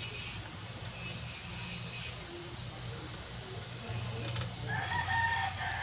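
Low, steady background hum and hiss, with a faint click about four seconds in.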